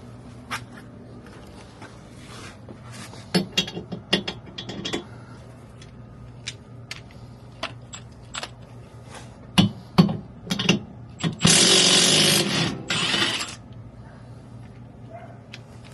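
Metal clicks, clanks and ratcheting of tools working on the car's rear suspension, then a loud steady burst of noise lasting about two seconds.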